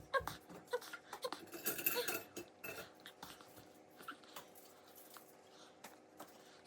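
Utensils clicking and clinking against dishes while a toddler eats, as scattered light taps that are busiest in the first few seconds, with a few brief small vocal sounds early on.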